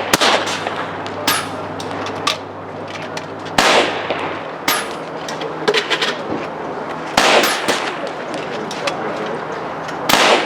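PCP air rifles firing one after another at uneven intervals, each shot a sharp crack, about five loud ones among several fainter ones.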